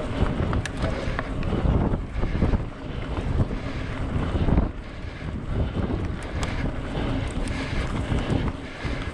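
Wind buffeting the microphone of a camera on a moving bicycle ride: a rough, uneven rumble that swells and dips, with a few light clicks and rattles.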